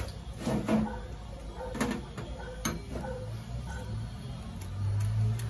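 A few sharp knocks and clinks of a kitchen knife and glass bowls against a metal tray as yellow peppers are cut by hand, over a low hum that swells near the end.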